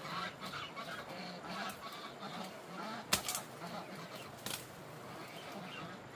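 Chickens clucking in short, repeated calls, with two sharp clicks, the louder about three seconds in.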